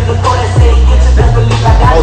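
Hip hop track playing loudly, a rapped vocal over a deep bass line that comes in about half a second in.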